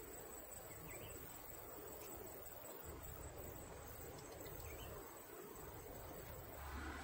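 Faint chirping of crickets and other insects, with a steady high-pitched trill over a low hiss. Just before the end a louder rushing noise comes in.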